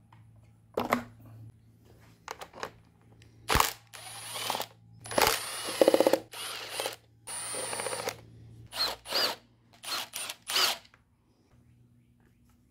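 Milwaukee Fuel brushless cordless power tool spinning out the 8mm valve cover bolts: a series of short whirring bursts, about eight of them, with one longer burst around the middle that has a rapid rattling hammer to it.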